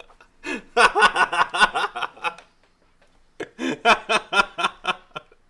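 A person laughing hard in two bouts of quick, pulsing laughs, the first starting about half a second in and the second about three and a half seconds in, with a short pause between them.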